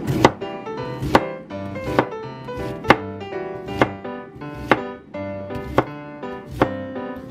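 Chef's knife slicing through an onion onto a plastic cutting board, the blade knocking on the board eight times at about one stroke a second, over light acoustic guitar background music.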